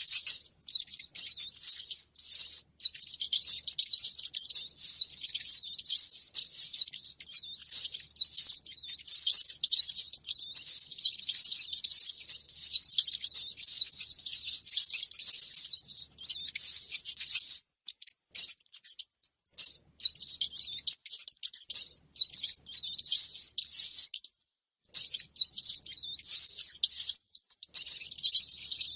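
Rats squeaking: a dense, rapid run of short high-pitched squeaks and chitters, broken by a brief lull about two-thirds of the way through and another short gap later.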